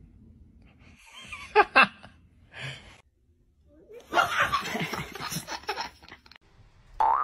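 Young child laughing hard in a rapid run of giggles for about two seconds, starting about four seconds in. Before it come a couple of short, sharp breathy sounds.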